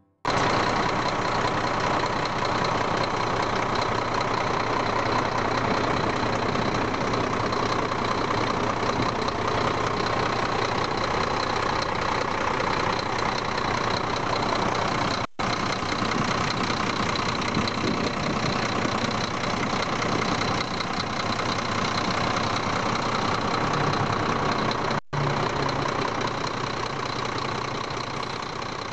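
Scania R-440 truck's 13-litre inline-six diesel running steadily, heard close up in the engine bay, with a thin high whine over the engine noise. The sound drops out for an instant twice.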